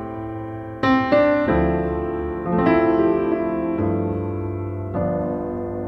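Outro music: a piano playing slow chords, each struck and left to ring out before the next.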